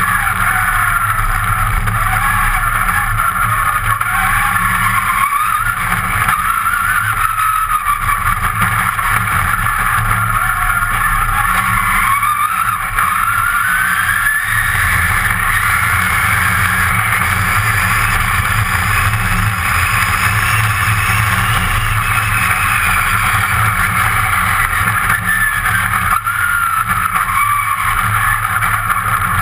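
Competition car's engine heard from inside the cabin, driven hard on a gravel course: its pitch climbs and drops repeatedly as the driver accelerates, lifts and changes gear, over a constant rumble of tyres on loose gravel.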